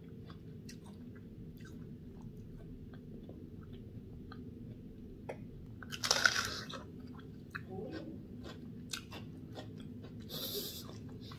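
Chewing watermelon, with small clicks, then a loud crunchy bite into the slice about six seconds in, followed by more chewing.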